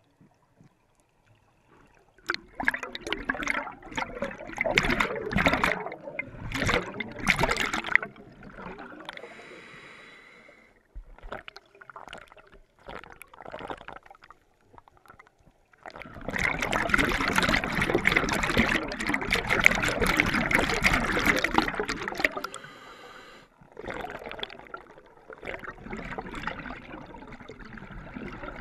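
Scuba diver breathing through a regulator underwater: two long rushes of exhaled bubbles, the second starting about halfway through, each followed by a shorter, quieter hiss of inhalation. Smaller bubble bursts follow near the end.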